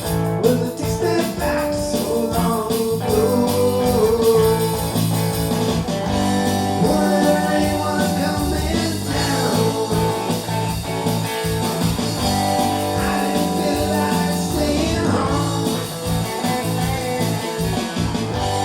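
Music: a rock song with guitar and a singing voice, playing steadily.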